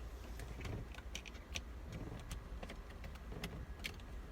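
Scattered light clicks and taps of hands working a car's steering-wheel airbag module loose from the wheel after its T30 screws are out.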